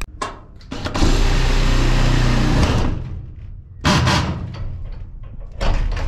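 Power drill driving a self-drilling tek screw into a steel gate frame, running steadily for about two seconds before stopping. Then two short knocks, the second near the end.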